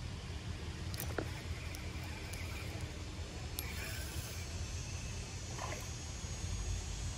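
Low, steady rumble of wind buffeting the phone's microphone, with a few small clicks.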